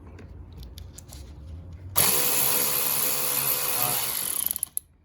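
Cordless power ratchet running for about three seconds as it loosens a fastener. It starts abruptly about two seconds in and stutters to a stop, with a few faint clicks before it.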